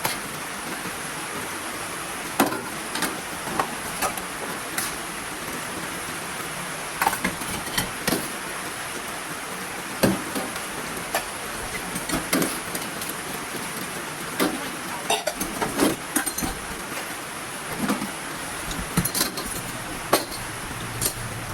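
Heavy rain falling steadily, with scattered sharp knocks and clinks every second or two.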